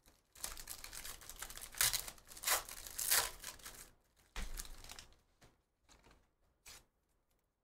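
A Donruss basketball hobby pack's wrapper being torn open and crinkled. About three seconds of rustling tearing with three sharper peaks are followed, about four and a half seconds in, by a shorter crinkle and then a few light clicks of cards being handled.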